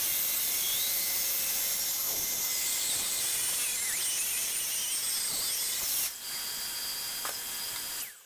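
DeWalt DWE7491 table saw running, its blade being raised up through a clamped plywood zero-clearance insert to cut the blade slot. A steady high whine with wavering high tones grows a little quieter about six seconds in, then stops near the end.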